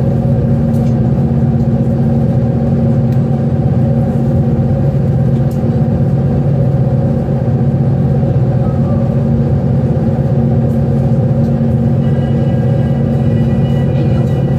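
OceanJet fast ferry's engines running at steady cruising speed, a loud, constant low hum and rumble heard from inside the passenger cabin.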